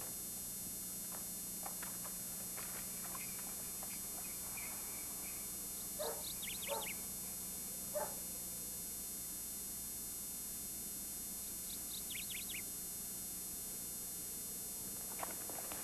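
Faint animal calls over a steady mains hum: a few short calls about six to eight seconds in, and two quick runs of high descending chirps, about six and twelve seconds in.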